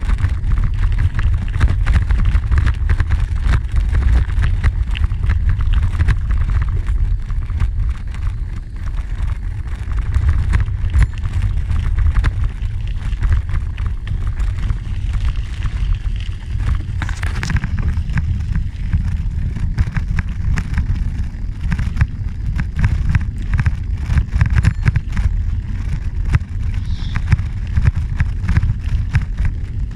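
Wind buffeting the microphone in a steady low rumble while riding along a gravel trail, with the tyres crunching and crackling over the gravel.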